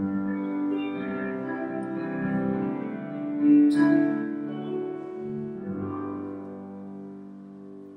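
Instrumental keyboard music playing slow held chords, the last chord dying away near the end.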